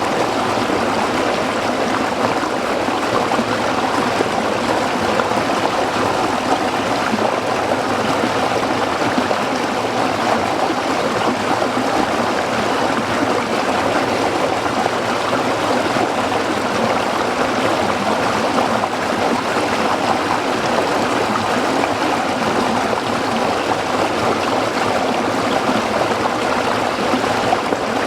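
Shallow stream of water flowing steadily over rocks, a constant babbling rush without breaks.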